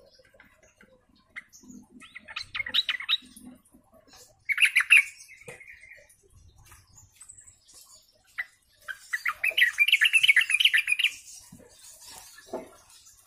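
Caged yellow-vented bulbul (trucukan) singing in three bursts of rapid chattering phrases, about two, four and a half, and nine seconds in; the last burst is the longest.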